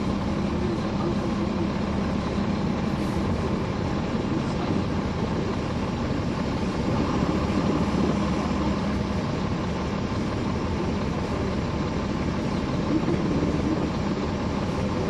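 Caterpillar C13 ACERT diesel engine of a NABI 40-SFW transit bus running steadily, heard from the rear seats inside the bus with its radiator fans on; it grows a little louder about halfway through.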